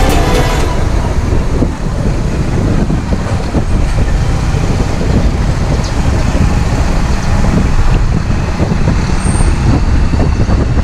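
Loud, steady rush of wind and road noise from riding on a moving vehicle, heaviest in the deep low end.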